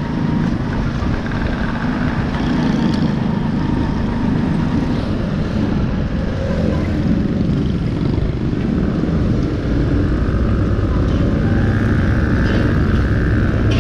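Small motorcycle riding through city traffic: its engine runs steadily under a dense low rumble, getting a little louder about ten seconds in.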